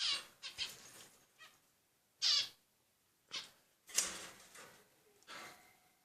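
Repeated short, high animal calls, several falling in pitch, with gaps between them.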